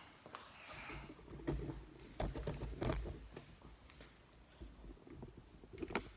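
Handling noise of a phone camera being picked up and carried by hand: a low rumble on the microphone with scattered knocks and taps, the sharpest a little after two seconds, near three seconds and near the end.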